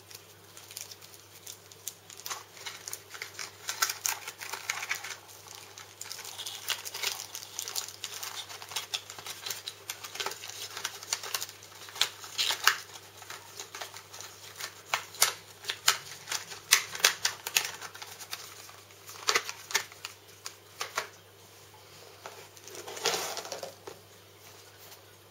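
Plastic packaging crinkling and rustling as it is handled, with irregular quick clicks and a few sharper taps of small parts and cardboard.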